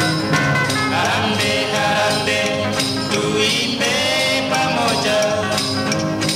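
Band music with a steady percussive beat and sustained melodic notes.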